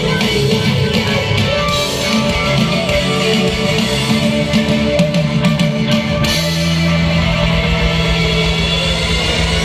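Live rock band playing an instrumental passage with electric guitar and drums. About six seconds in, a low note is held under the guitar.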